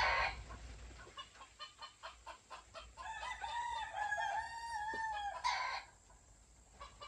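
Game rooster crowing: one long drawn-out crow starting about three seconds in and lasting about two and a half seconds, ending with a short rough burst. The birds are crowing against each other after being stirred up.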